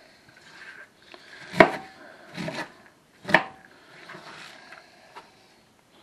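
Cabbage being chopped and handled on a cutting board with a kitchen knife: soft rustling and scraping of cut leaves, with two sharp knocks on the board.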